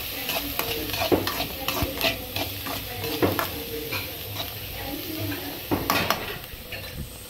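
Chopped onions sizzling in hot oil in a metal kadai while a steel spatula stirs and scrapes them, with irregular clacks of the spatula against the pan. The onions are being sautéed until they turn glassy.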